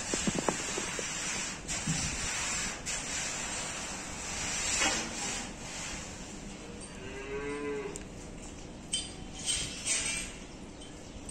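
Young calf bawling while its horn bud is burned with a hot disbudding iron: one long, wavering moo about seven seconds in, over a steady hiss, with a few sharp knocks near the end.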